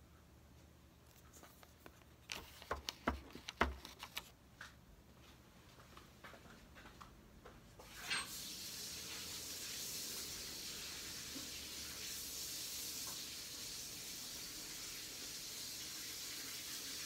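A handful of sharp taps and knocks as a paint-covered vinyl record is handled and set down on a plastic cup, then about eight seconds in a steady hiss starts and keeps going.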